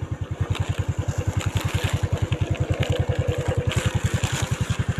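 A small engine running steadily with an even, low putter of about twelve beats a second.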